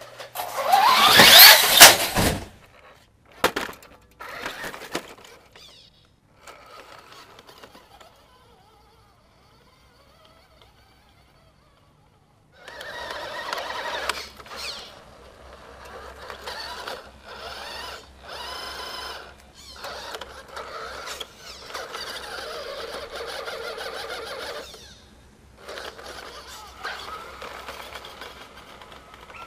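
1988 Radio Shack Toyota Hilux Super 4x4 RC truck's electric motor and gears whining in on-and-off bursts as it drives over dirt and dry leaves, from about halfway in. Before that, a loud burst with a rising whine near the start, then several seconds of near silence.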